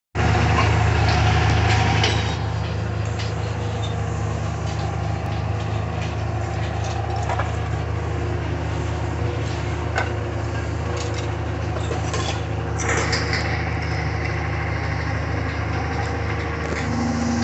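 Diesel engine of a Cat wheeled scrap material handler running steadily with a low drone. A few light knocks sound over it.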